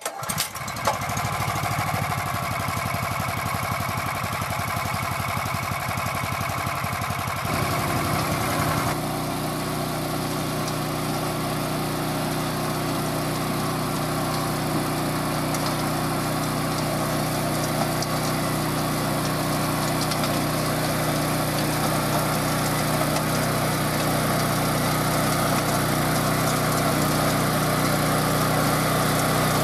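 Grillo G107D walk-behind tractor's Honda GX340 single-cylinder engine running steadily. About eight seconds in the sound shifts, and from then on the engine runs under load, driving the 27-inch rear tiller through soil in first gear at about full throttle.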